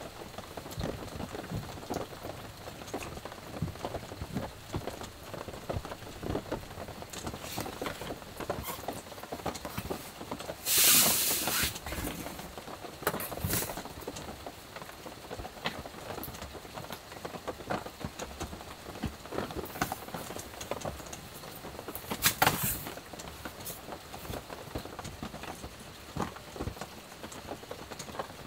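Heavy rain pattering on the roof of a small truck camper, heard from inside. Over it, two short bursts of fabric rustling, about a third of the way in and again about three-quarters in.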